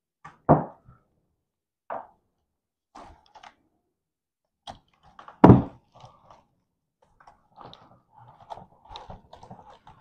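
A loose automotive wiring harness and its plastic fuse box being handled and pulled apart: two dull thunks, about half a second in and about five and a half seconds in, with a few lighter clicks between, then soft rustling and clicking of wires and connectors near the end.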